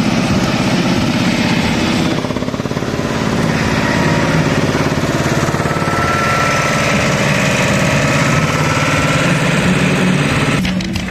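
Small vintage tractor's engine running close by with a rapid, even firing beat as the tractor drives off.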